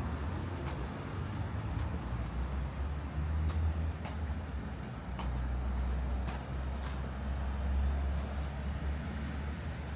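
Steady low vehicle rumble that swells and eases a few times, with scattered sharp clicks.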